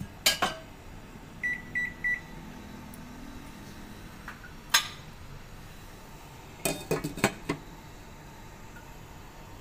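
Three short, evenly spaced beeps from an electric cooktop's touch controls about a second and a half in, with sharp clicks before and after. Near the end comes a quick cluster of clinks as a glass lid is set on the steel pot.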